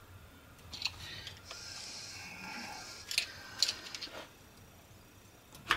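Screwdriver scraping and clicking against a new crankshaft main bearing shell as it is spun around the journal into its seat: a few light metal clicks, with a stretch of faint scraping in the first half and a sharper click at the very end.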